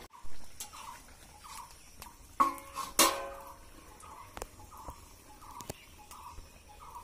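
Steel plate knocking and clanking against an iron karahi, with a short metallic ring after the loudest clank about three seconds in. A small bird chirps all through, about two short chirps a second.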